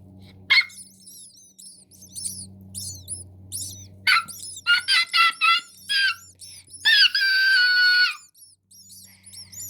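Nestling birds cheeping: many short, thin, high chirps. About four seconds in comes a quick run of louder, lower calls, and about seven seconds in a long steady squeal lasting about a second.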